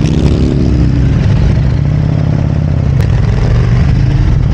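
Harley-Davidson Road Glide's V-twin engine running as the motorcycle rolls off at low speed; its note falls about a second in, then runs steady.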